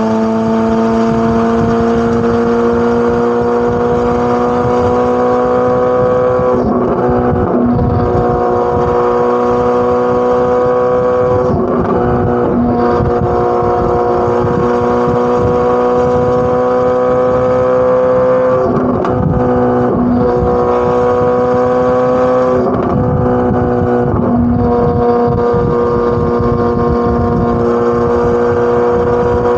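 Corvette C8 Z06's naturally aspirated flat-plane-crank V8 running hard under sustained throttle, a loud high-pitched exhaust note that climbs slowly in pitch. The pitch dips briefly and picks up again four times, roughly every five seconds.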